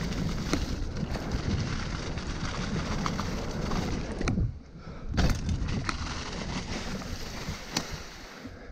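Mountain bike ridden fast down a leaf-covered dirt trail, heard from a helmet camera: a steady rumble of tyres on the ground and wind on the microphone, with sharp knocks and rattles from the bike over bumps. About four and a half seconds in it briefly goes quieter, then a hard knock follows.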